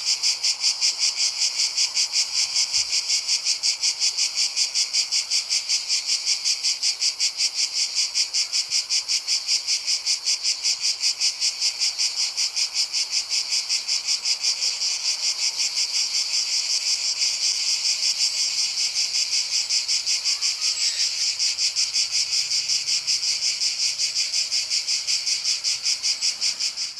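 Insects singing in a dense, steady chorus: a shrill, high buzzing that pulses at a fast, even rate without a break.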